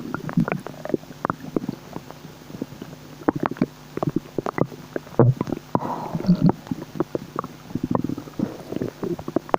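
Human stomach bubbling and gurgling: a dense run of short pops and squelches, with brief low gurgles among them.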